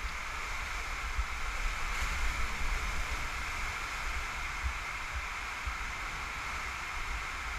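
Steady rush of water inside an enclosed tube water slide as a rider slides down it, with an uneven low rumble from the ride on the rider's camera.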